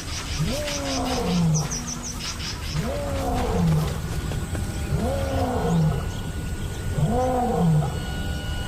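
Male lion roaring, a series of four deep calls about two seconds apart, each swelling up and then sliding down in pitch. It is a pride male's territorial roar, a claim of ownership over his lioness and ground.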